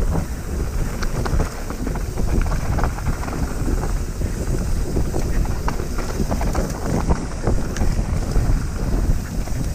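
Wind buffeting a handlebar-mounted camera's microphone as a mountain bike rolls fast down a dirt trail, with tyres rumbling and many short rattles and knocks from the bike over bumps.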